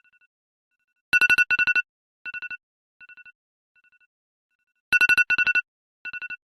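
iPhone alarm ringing: quick groups of high electronic beeps. A loud group comes about a second in and again near five seconds, and each is followed by fainter repeats that fade away like an echo.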